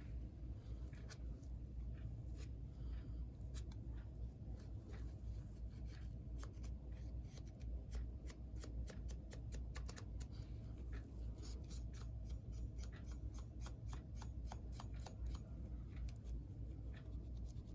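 Faint, scattered small clicks and light scratching from small metal model-locomotive contacts being handled and scrubbed with a Scotch-Brite pad, thickest a little past the middle, over a steady low hum.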